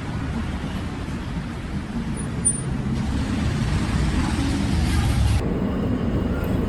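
Steady low rumble of city vehicle noise, with no clear single event. The sound changes abruptly about five seconds in.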